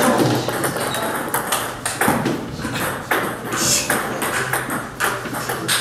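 Table tennis balls struck by bats and bouncing on the table during a serve and drive practice rally: a quick, irregular series of sharp ticks.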